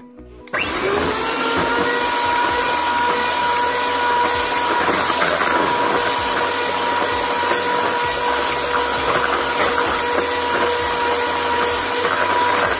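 Electric hand mixer switched on about half a second in, its motor whine rising quickly to a steady pitch and running steadily as the beaters mix cake batter in a plastic bowl.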